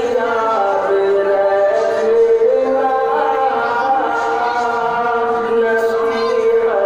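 A man singing a naat unaccompanied, a melismatic devotional melody with gliding pitch, holding one long note for several seconds in the latter part.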